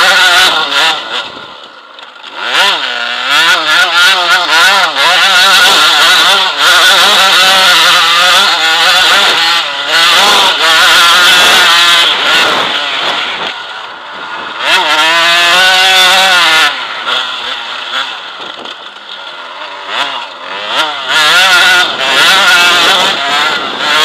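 Enduro motorcycle engine heard from a camera mounted on the bike, revving hard and easing off again and again, its pitch climbing and dropping with each throttle change. Knocks and rattles from the rough ground come through the mount.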